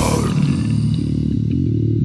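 Metal music: the full distorted band cuts off right at the start and a cymbal rings away, leaving a bass guitar playing a line of stepping notes alone.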